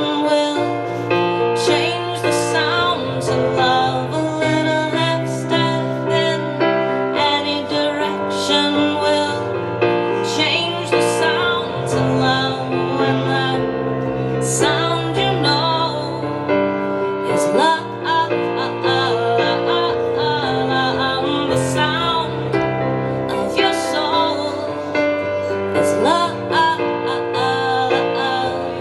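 Live keyboard playing in a piano sound: an instrumental passage of sustained chords over bass notes that change every second or two, with a woman's singing voice coming in at times over it.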